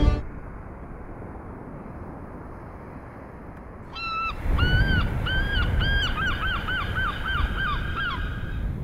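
A gull calling: a long series of about a dozen yelping notes that start about four seconds in and come faster toward the end, over steady wind noise.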